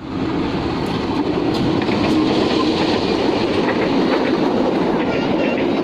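A train passing close by: a steady rumble of its wheels running on the rails, with wheels clicking over the rail joints.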